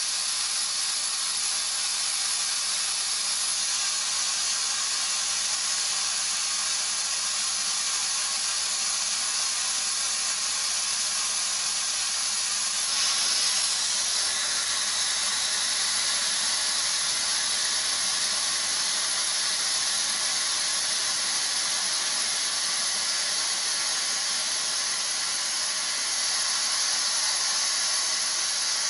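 Steady hiss of air escaping from a Chevrolet Volt's right front tire, its valve stem held open with an air chuck: the overinflated tire is being deflated so its pressure drop triggers the TPMS sensor relearn.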